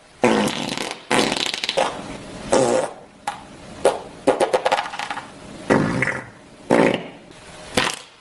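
Fart sound effect: a string of about eight separate farts, some long and buzzing, some short sputtering pops, with brief pauses between them.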